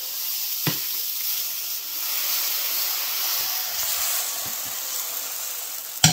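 Dosa batter sizzling on a hot tawa, a steady hiss that swells a little about two seconds in, with a light knock near the start.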